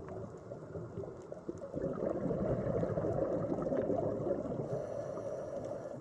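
Underwater bubbling rush, the sound of a scuba diver's exhaled bubbles gurgling past the camera microphone, swelling about two seconds in and easing off near the end.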